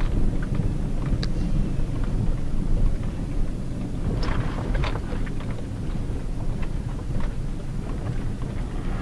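Cabin noise of a Hyundai Tucson JM with its 2.0-litre petrol four-cylinder driving on a gravel road: a steady low rumble of tyres and engine, with scattered sharp ticks of gravel against the car, several together about four to five seconds in.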